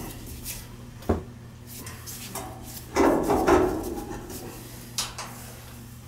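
Pipe wrench working threaded black iron pipe: a sharp metal click about a second in, a louder burst of clanking around three seconds in, and another click near five seconds.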